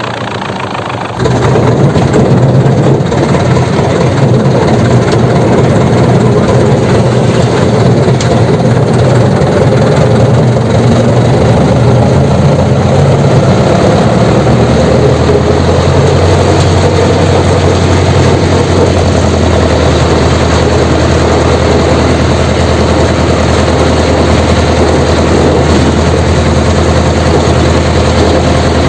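Jessop road roller's diesel engine catching about a second in, then running loudly and steadily at idle with a deep hum.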